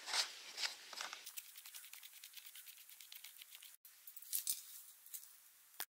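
Faint hand-work noises: a few short scrapes in the first second, then light scattered clicks and ticks.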